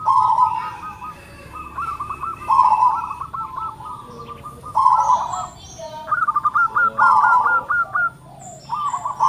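Zebra dove (perkutut) cooing: phrase after phrase of quick, rolling coos, with a longer run about two-thirds of the way in. A few short, high, faint chirps come in near the middle and near the end.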